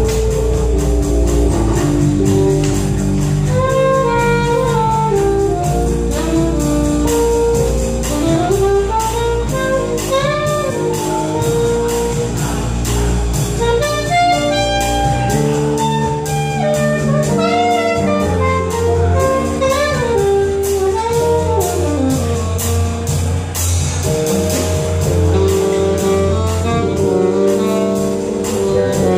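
Live jazz quintet playing: a horn lead of quick melodic runs over sustained keyboard chords, with bass and drums keeping a steady cymbal pulse.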